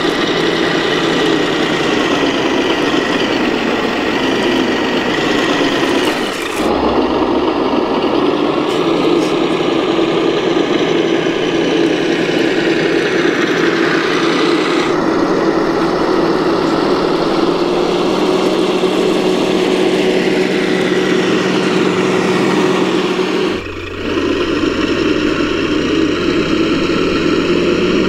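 Simulated diesel truck engine from an RC truck's Reely sound module, running steadily through the truck's small speaker. It breaks off briefly and changes character twice.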